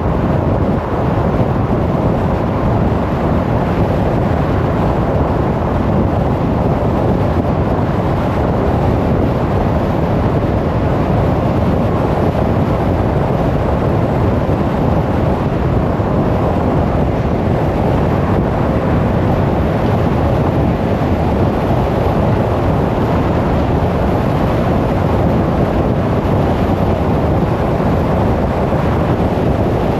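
Steady road noise of a car driving at speed: an even rumble of tyres and wind that stays the same throughout.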